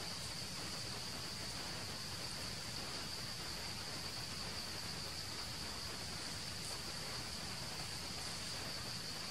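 Insects droning steadily at one constant high pitch, over an even outdoor hiss.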